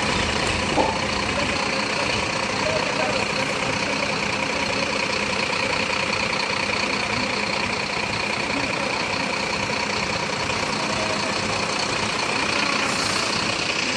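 Heavy truck's diesel engine idling steadily, an unchanging hum with a few faint steady tones above it.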